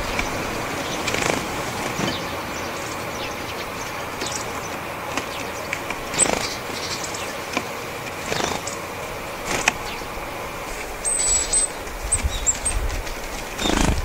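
Japanese tits' wings whirring in several brief flutters as they fly to and from a seed board, with a few thin, high call notes about eleven to thirteen seconds in, over steady background noise.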